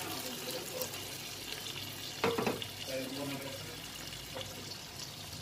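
Prawn curry simmering in a frying pan, its sauce sizzling and bubbling with the water just added. A brief knock about two seconds in.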